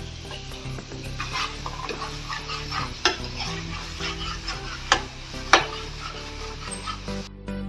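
A spoon stirring a tomato and spice masala frying in a pan, sizzling steadily, with a few sharp clicks of the spoon against the pan. The sizzling cuts off near the end.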